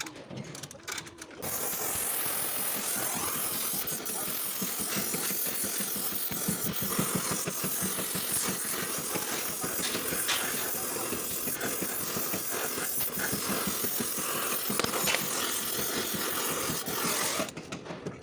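A power tool running steadily with a dense hissing, rapidly pulsing noise. It starts about a second and a half in and cuts off shortly before the end.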